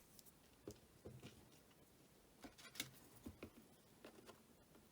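Faint, scattered small clicks and ticks of a precision screwdriver and small tools on an iPhone 8's home button bracket screw.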